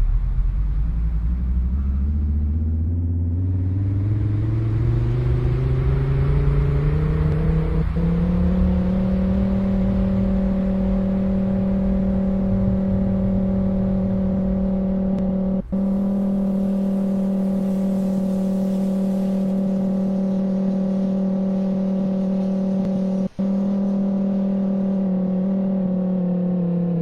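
Outdoor tornado warning siren winding up, its pitch rising over the first eight seconds or so, then holding a steady tone. The sound drops out briefly twice.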